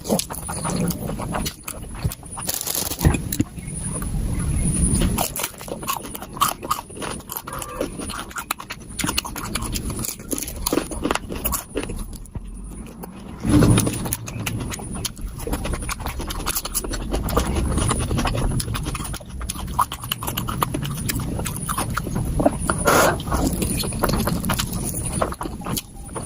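Close-miked eating sounds played back sped up: rapid chewing, crunching and slurping run together into a dense, fast clicking chatter.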